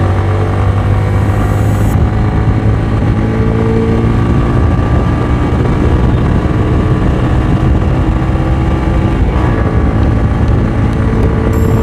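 Motorcycle running hard at highway speed, past 100 km/h. A steady, loud engine drone with road and wind rush, and no change in pitch or pace.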